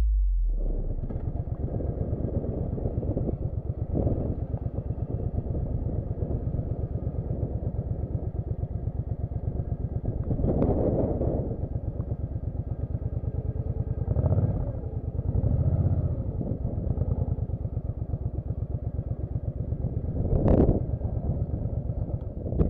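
Suzuki Boulevard motorcycle engine running while riding, a steady, fast run of low firing pulses, with a few brief louder swells.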